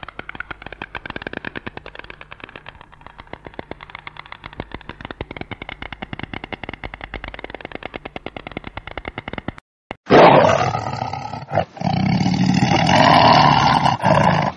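White stork clattering its bill: a long, even rattle of rapid clacks. It breaks off about ten seconds in, and a tiger roars loudly.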